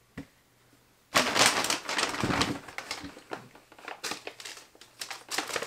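Brown paper bag crinkling and rustling as it is picked up and handled, loudest for about two seconds starting about a second in, then softer intermittent crackles.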